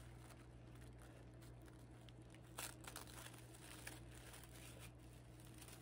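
Faint crinkling and rustling of tissue paper being unwrapped by hand, with a slightly sharper rustle about two and a half seconds in.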